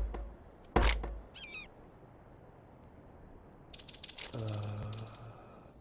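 Sound effects from an animated film's soundtrack: two deep booming hits in the first second, a brief high chirp like a bird's, then a run of rapid clicks and a low steady tone with overtones lasting about a second near the end.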